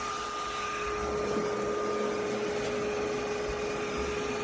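Yeedi M12 PRO+ robot vacuum running: a steady motor hum with a constant whine.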